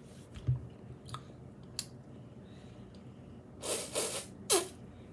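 Mouth sounds of eating a frozen Super Twist ice pop from its plastic tube: a few small clicks, then a loud slurping suck about three and a half seconds in and a sharp smack just after it.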